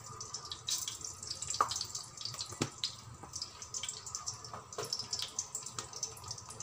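Mustard seeds sizzling and popping in hot oil in a wok, with irregular sharp pops over a faint sizzle.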